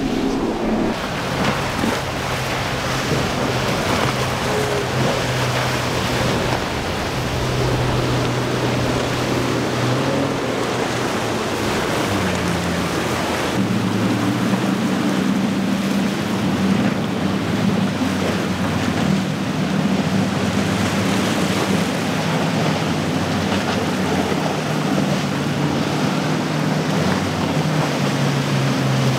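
Outboard-powered center-console boats running at speed through choppy inlet water: a steady outboard engine drone over rushing water and spray, the engine pitch changing partway through.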